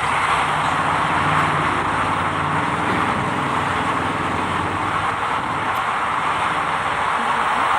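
Heavy-equipment diesel engine running steadily under a dense, even hiss, its low hum fading about halfway through.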